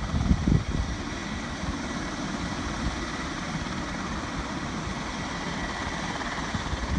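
V-22 Osprey tiltrotor running with steady engine and rotor noise, with low wind buffeting on the microphone in the first second.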